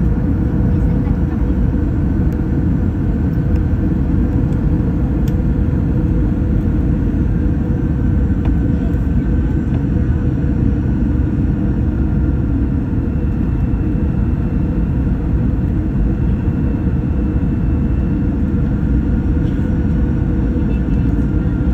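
Steady cabin noise of an airliner in flight: a constant rumble of engines and airflow with a faint steady hum.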